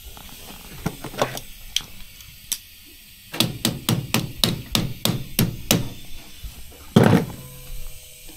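Hammer striking metal: a few scattered taps, then a quick run of about eight blows at roughly three a second, and one heavier blow near the end.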